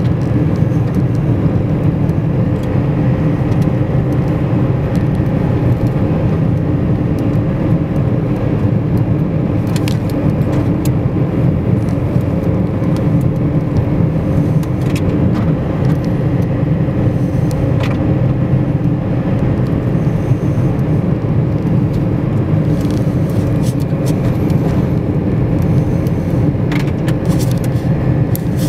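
Steady in-cabin rumble of a car driving, with engine and tyres running on a snow-packed road. A few faint ticks are heard along the way.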